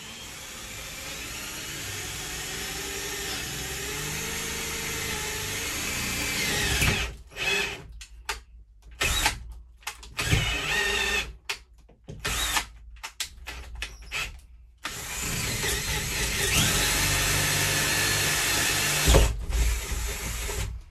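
Cordless drill boring a hole through a door. It runs steadily under load for about seven seconds, then in short stop-start bursts, then steadily again for several seconds, with a low knock just before it stops; a hole that took more work than the first.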